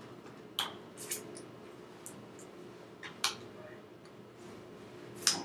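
Scattered sharp clicks and taps, about six, from a person signing with hands and mouth, the loudest near the end, over a steady low room hum.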